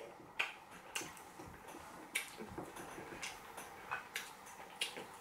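Faint eating sounds: irregular soft mouth clicks and smacks of chewing, one or two a second.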